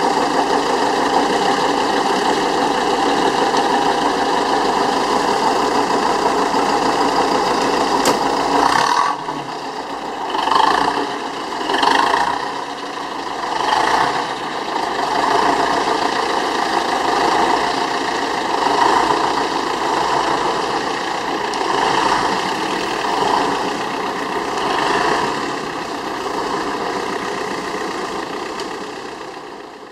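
Old Scania-Vabis L36 truck's diesel engine idling steadily, then from about nine seconds in its speed rising and falling in a string of uneven swells.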